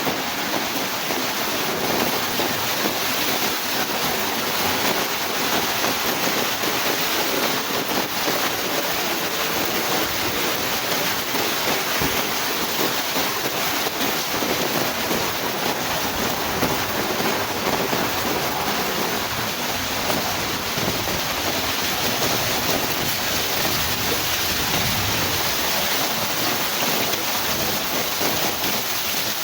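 Heavy rain pouring steadily, a dense even hiss of rainfall with wind mixed in.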